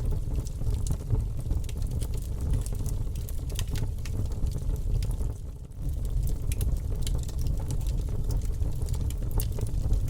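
Campfire burning: wood crackling with frequent sharp pops over a steady low rumble, easing off briefly a little past the middle.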